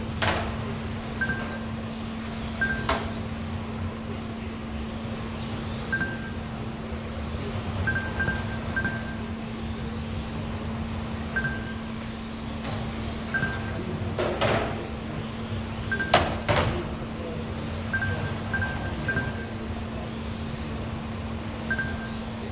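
1/12-scale GT12 electric RC cars racing on a carpet track: high motor whines rising and falling as cars pass, and short repeated beeps of the lap-timing system as cars cross the line, over a steady low hum. A few sharp knocks come about two-thirds of the way through.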